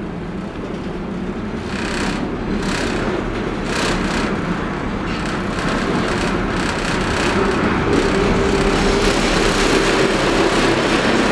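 Adtranz M-4 Market-Frankford Line elevated train approaching, its rumble growing steadily louder. Several sharp clicks come a few seconds in, and a steady whine joins about two-thirds of the way through.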